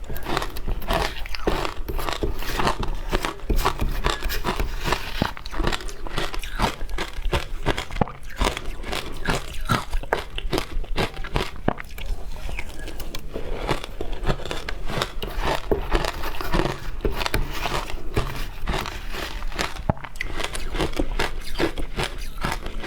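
Frozen matcha ice being bitten and chewed close to the microphone: a rapid, irregular run of crisp crunches and cracks.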